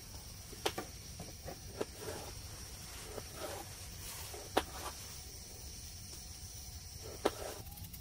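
Knife peeling potatoes by hand: soft scraping of the blade with a few sharp clicks spread through, the sharpest about seven seconds in.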